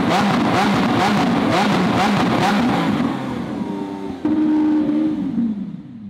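Lamborghini Aventador S's 6.5-litre V12 revving through an Inconel rear X-pipe exhaust: quick throttle blips about twice a second, then after a short dip a single rev that rises suddenly, holds, and falls away near the end.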